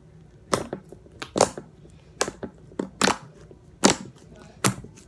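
Thick, glossy school-glue-and-borax slime squished and pressed by hand, giving sharp wet pops and clicks a little more than once a second.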